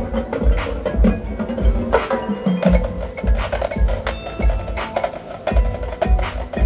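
Marching band in a percussion-led passage: low drum hits about twice a second under sharp wood-block clicks, with mallet keyboards such as marimba and bells ringing over them.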